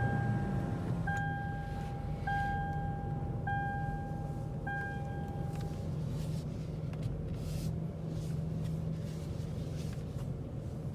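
Lexus GX460's V8 engine catching and settling into a steady idle. A dashboard warning chime dings five times, about once a second, over the first half, then stops.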